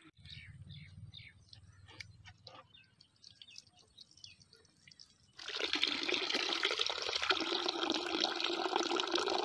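Water pouring from a clay pot spout and falling in a thin stream down a brick wall into a small pool. It is faint at first, then about five seconds in it becomes a loud, steady splashing.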